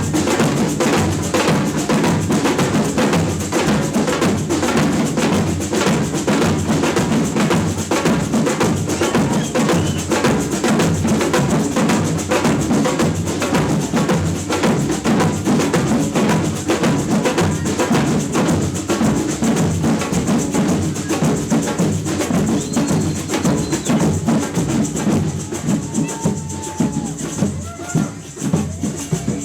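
Percussion band drumming a steady, driving rhythm on low drums and sharper clicking hits. The playing thins out near the end and stops.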